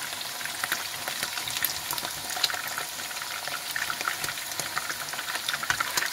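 Meatballs frying in hot olive oil in a frying pan: a steady sizzle full of small crackling pops.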